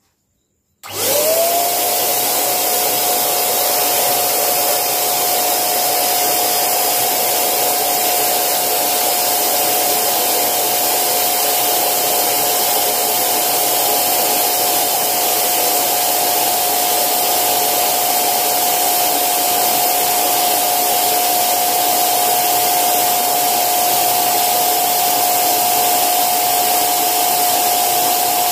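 Pink electric balloon pump switched on about a second in. Its motor spins up quickly to a steady whine over a rush of blown air as it inflates a vinyl inflatable chair.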